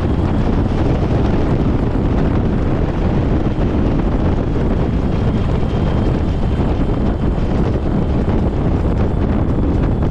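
Biplane's engine and propeller running steadily as it taxis, with heavy prop-wash wind buffeting the microphone at the tail.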